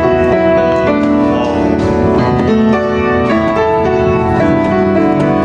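Instrumental music led by keyboard chords, the notes held and changing about every half second.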